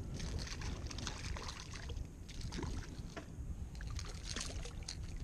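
Water splashing and lapping beside a kayak as a small hooked trout thrashes at the surface, over a low steady rumble.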